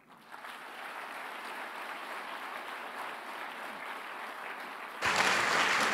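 A large seated audience applauding, an even steady clapping that gets suddenly louder about five seconds in.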